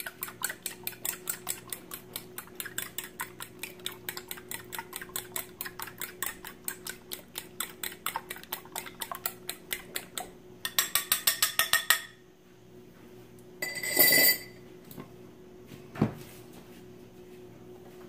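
A fork beating raw eggs in a bowl for an omelet: rapid, even clinks of the fork against the bowl, louder for a second or so before the beating stops. Then one short ringing clink and, a little later, a single dull knock.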